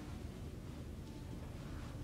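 Quiet room tone with a low steady hum and a few faint strokes of a marker on a whiteboard as a word is finished.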